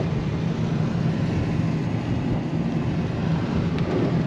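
Steady road noise inside a moving car's cabin, with the tyres running on a rain-soaked road.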